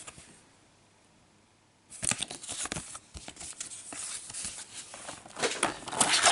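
Paper sheets and a clear plastic blister pack being handled, making crinkling and rustling with small clicks. It starts about two seconds in after a brief silence and grows louder near the end as the plastic shell is handled.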